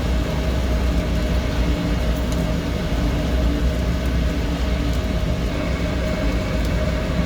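A steady low machine hum and rumble with a faint higher tone held above it, unchanging throughout.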